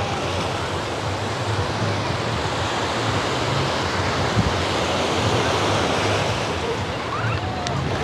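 Black Sea surf washing steadily onto the sand beach, with wind rumbling on the microphone and a brief low bump about halfway through.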